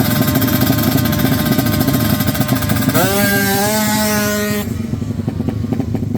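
Drag-racing motorcycle engine running flat out. Its pitch climbs sharply about halfway through as it accelerates, then it cuts off abruptly, leaving a lower, rougher engine sound.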